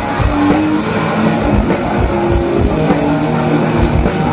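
A rock band playing live: a drum kit keeping a steady beat under sustained distorted electric guitar notes.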